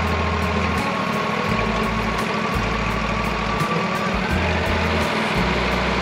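Background music with a bass line and a light regular beat, over the steady running of a Wood-Mizer LT40 portable sawmill's engine.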